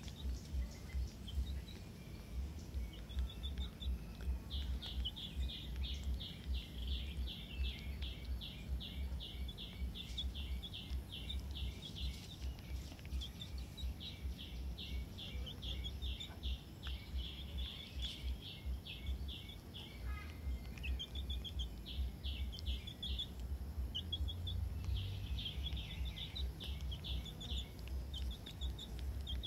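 A bird calling in long runs of short, high chirps, several a second, with a short break about two-thirds of the way through. Under it runs a low fluttering rumble.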